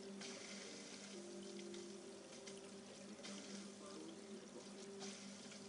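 Aquarium equipment running faintly: a steady hum from the pump with an even hiss of water running from the filter.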